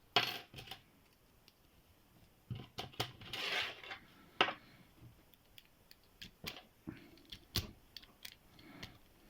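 Scattered metallic clicks and rattles of a pick being zipped through the pins of a Qualtec padlock and the padlock being handled, with a short scraping rattle about three to four seconds in.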